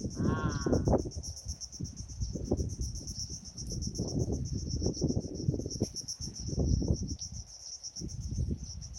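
Steady chorus of insects chirping in fast, even pulses, over an uneven low rumble. A short vocal sound is heard right at the start.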